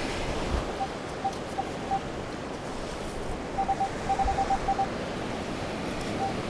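Metal detector giving short beeps at one steady pitch, a few scattered at first and then a quick run of them about halfway through as the coil passes over a buried target, a signal judged to sound good. A steady wash of surf runs underneath.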